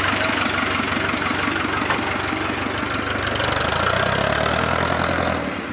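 Diesel tractor engine running steadily under heavy load, pulling a loaded trolley whose wheels are sunk in soft soil; its pitch shifts slightly about four seconds in.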